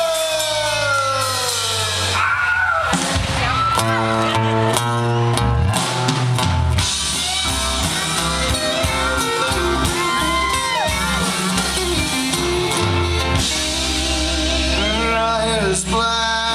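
Live country band performing, with strummed acoustic guitar and drum kit. It opens with a long falling vocal yell, then runs into an instrumental passage.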